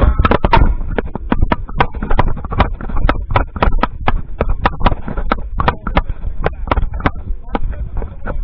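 Quick, regular footsteps on asphalt, about three a second, each carried as a knock through the body-mounted tenor drum carrier, with voices in the background.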